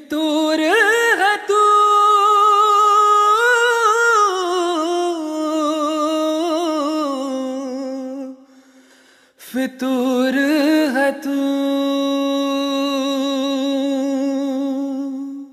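Background music: a solo voice humming wordless melodic phrases with long, wavering held notes. The first phrase fades out about eight seconds in, and a second begins after a short break.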